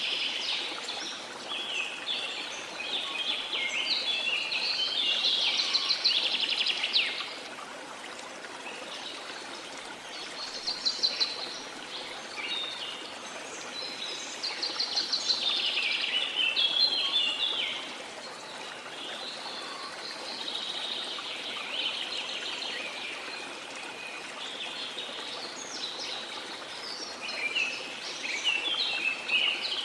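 Small songbirds singing in bouts of rapid chirps and trills, a few seconds on and a few seconds off, over a steady rush of sea water.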